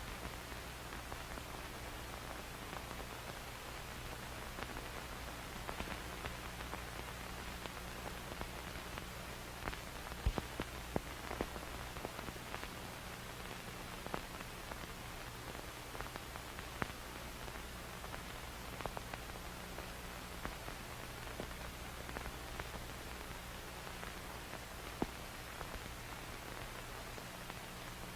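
Old-film crackle sound effect: a steady hiss over a low hum, with scattered pops and clicks that are thickest around the middle.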